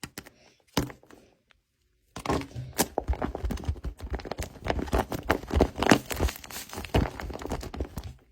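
Paper being handled: a few taps at first, then from about two seconds in a dense crinkling and crackling of paper that stops just before the end.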